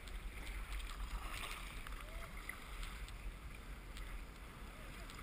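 Choppy sea water lapping and splashing around a small craft riding low on the surface, with scattered small splashes over a steady low rumble.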